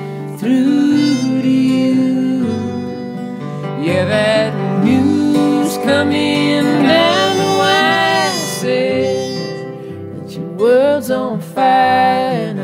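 Country-folk music on acoustic guitars, with bending melodic lines and some singing over the strummed chords.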